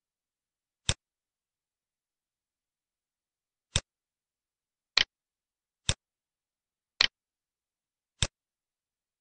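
Computer mouse clicking six times at uneven intervals, single sharp clicks.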